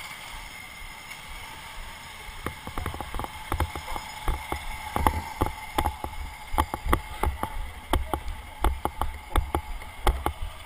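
Wind buffeting and knocks on a helmet-mounted GoPro in its housing as a kart pulls away. A steady hiss gives way, about two and a half seconds in, to irregular thumps and low rumbles.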